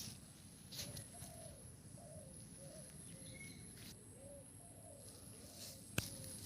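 Faint bird calls: a run of short, low, arched notes repeated about every half second, with a sharp click about six seconds in.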